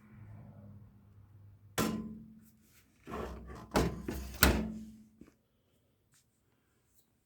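Objects being handled and set down during an unboxing: a sharp thunk about two seconds in, then a cluster of several loud knocks between three and four and a half seconds in.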